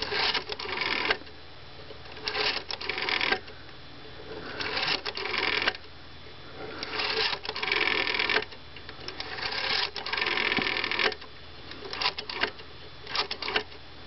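Rotary dial of a 1980s-era Western Electric Model 500 telephone being dialed about seven times. Each digit is a short whirring as the finger wheel is pulled round and spins back to its stop, and the dialing sounds smooth and even.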